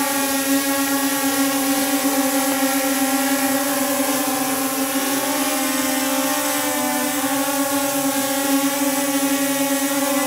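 WLtoys XK X1 quadcopter's brushless motors and propellers hovering with a steady, even buzzing hum. The pitch dips briefly about seven seconds in.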